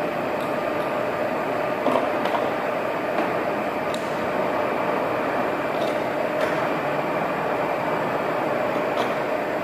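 VDF Boehringer DUE 800 heavy engine lathe running steadily under power, its drive and gearing giving a constant hum with a steady tone in it. A few light clicks come at intervals.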